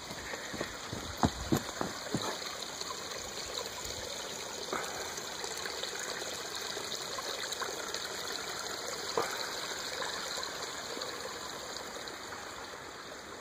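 Small woodland creek trickling steadily over rocks and twigs. In the first two or three seconds, several sharp knocks of footsteps on a wooden plank bridge stand out above it.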